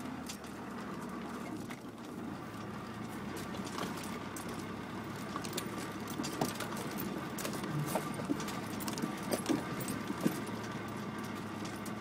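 Land Rover Discovery Mk1 engine running steadily, heard from inside the cabin while driving over rough off-road ground, with scattered rattles and knocks from the body and loose items. The knocks get sharper in the second half.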